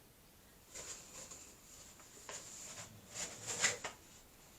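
Soft paper rustling as a rolled art print is pulled from its tube and unrolled, in a few brief rustles: about a second in, just after two seconds, and again between three and four seconds.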